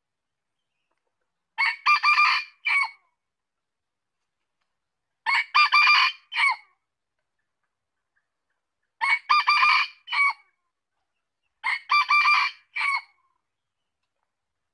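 Male red junglefowl crowing four times, about every three and a half seconds. Each crow is short and clipped: a brief first note, a longer middle and a short final note.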